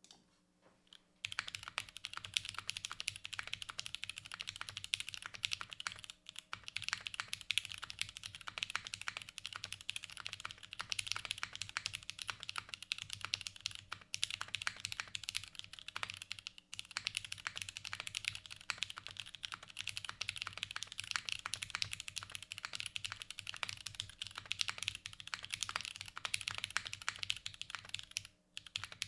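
Fast, continuous typing on a Sessanta HHKB-layout mechanical keyboard with lubed Cherry MX Vintage Brown tactile switches, a top-mounted carbon-fibre plate and GMK keycaps. The typing starts about a second in and has a few short pauses.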